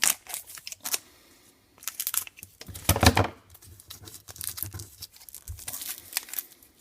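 Foil trading-card pack wrapper crinkling and tearing as a stubborn pack is opened, in irregular bursts with a brief pause just after a second in and the loudest rip about three seconds in.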